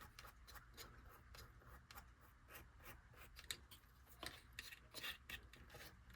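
Faint, irregular small clicks and scratches of craft materials being handled and worked by hand, a few slightly louder clicks in the second half.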